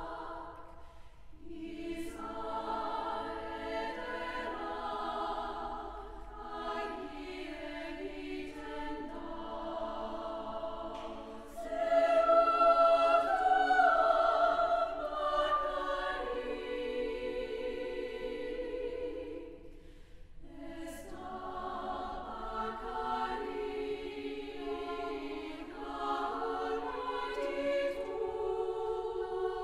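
Women's chamber choir singing in Basque: held, layered chords in long phrases. It swells louder about twelve seconds in and briefly breaks off for a breath a little before the last third.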